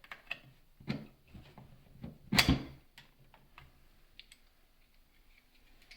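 Scattered light clicks and knocks of small metal parts as the tilt lock mechanism is worked off a tilting chocolate refiner, with one louder knock about two and a half seconds in.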